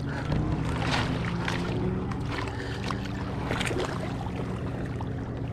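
Water splashing several times in quick bursts as a hooked bass thrashes at the surface in shallow water while being landed. Under it runs a steady low drone of a motorboat engine on the lake.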